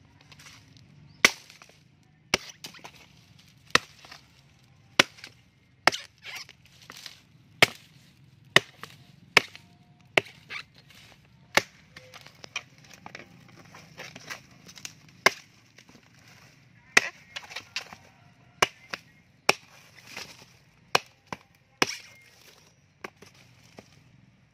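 Small hand-forged axe chopping through coconut palm frond stalks: some twenty sharp blows at irregular intervals, roughly one a second, with short pauses between groups.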